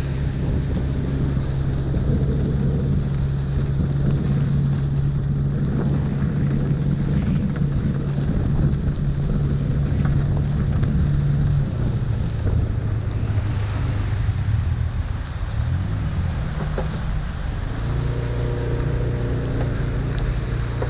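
A motor vehicle's engine runs steadily under a wash of rain, water and wind noise. Its note wavers and falls away for a few seconds past the middle, then returns steady near the end.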